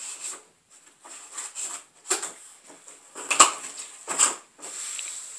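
A cardboard TV box being pried open by hand: irregular rustling and scraping of cardboard with several sharp snaps and tears, the loudest about three and a half seconds in, then a steady hissy rustle near the end.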